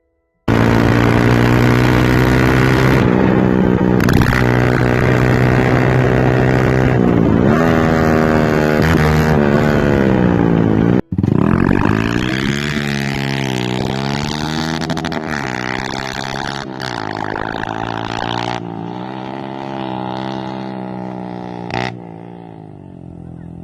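Yamaha R15 V2's single-cylinder engine running through an aftermarket Akrapovic exhaust, held steady and then revved up and down repeatedly, with a few sharp pops near the end. The exhaust is misfiring.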